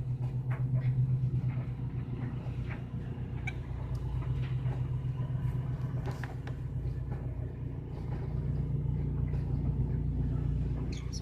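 A steady low hum with scattered faint clicks over it.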